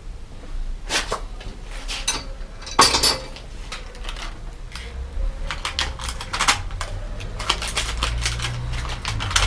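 Small metal bicycle parts and hand tools clicking and clattering as they are handled during assembly, with a single louder knock about three seconds in and quick runs of clicks in the second half. A low rumble sits underneath from about halfway through.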